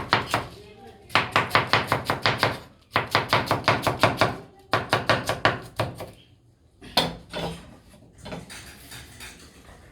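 Kitchen knife chopping cabbage on a cutting board in three quick runs of rapid strokes, then a single chop about seven seconds in before the chopping stops.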